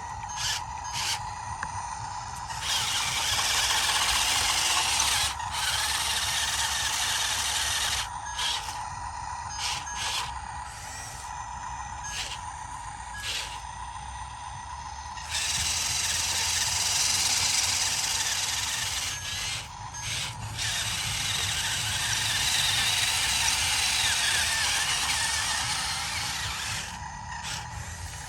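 YIGONG YG258C excavator running, with a steady whine and a low rumble throughout. Two long stretches of louder rushing noise come in, about three to eight seconds in and from about fifteen seconds until near the end.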